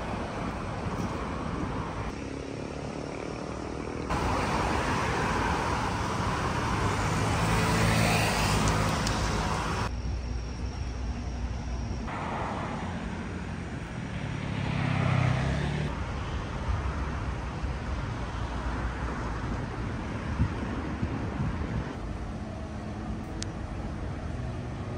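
Outdoor road traffic noise, a steady hum of passing cars with two vehicles swelling up and fading away. The background changes abruptly a few times.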